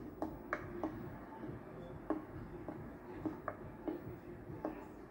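Soft clicks at uneven intervals over a low steady hum.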